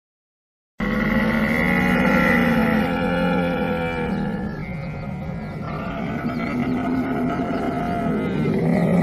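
A camel groaning in long, low, drawn-out calls, starting abruptly about a second in.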